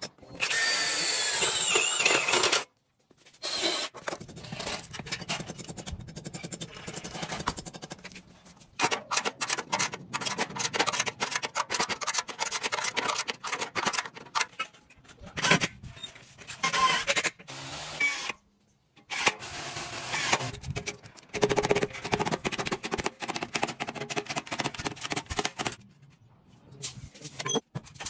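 Hand-tool work on metal fence parts: repeated tapping, knocking and scraping, with a shrill gliding sound in the first couple of seconds. The sound breaks off abruptly several times between clips.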